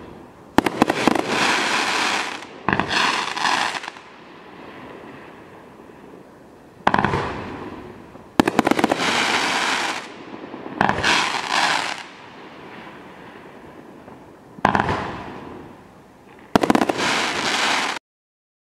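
Gold Pyre Fire 18-shot 350 g consumer firework cake firing, about eight shots bursting in irregular groups, each a sharp bang followed by a rapid crackling tail that fades over a second or two. The sound cuts off abruptly near the end.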